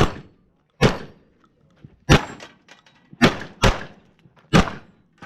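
Shotgun blasts fired in quick succession, six shots in about five seconds at uneven intervals, each with a short echo.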